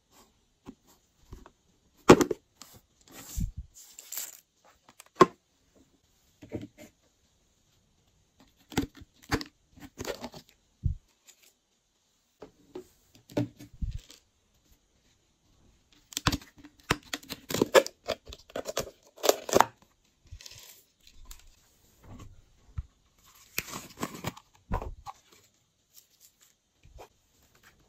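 Hands handling small plastic containers and dropping sequins, glitter stars and clay pieces onto trays of slime ingredients: scattered clicks, taps and crinkly rustles with short pauses between. The busiest, loudest stretch of handling comes a little past the middle.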